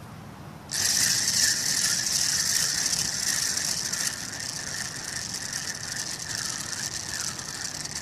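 Spinning reel being cranked to retrieve line, its gears and bail clicking in a steady whirr that starts about a second in and swells and dips with each turn of the handle.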